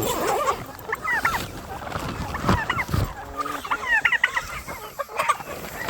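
A flock of chickens clucking, with scattered short high calls, and two dull thumps about halfway through.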